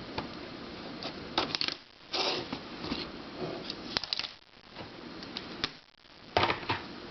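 Plastic twisty puzzles being handled: irregular light clicks and clatters of plastic pieces, with a few sharper clicks.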